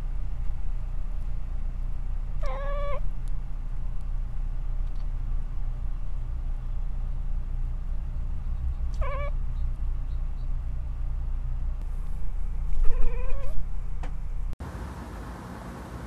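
Domestic cat chirping at birds through a window: three short, warbling calls a few seconds apart, the last the longest, over a steady low hum.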